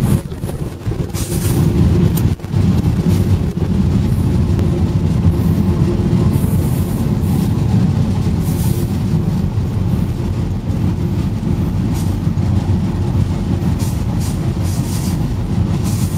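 Steady low rumble of a moving vehicle heard from on board, with brief faint clicks scattered through it.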